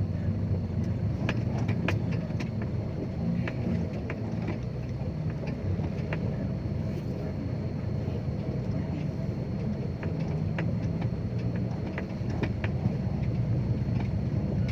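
Dump truck's diesel engine running steadily under way, with scattered light rattles and clicks from the truck.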